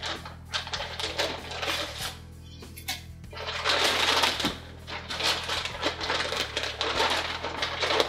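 Light clicking and clattering of PC case parts being handled, with a louder rustling stretch about halfway through, over background music with a steady low hum.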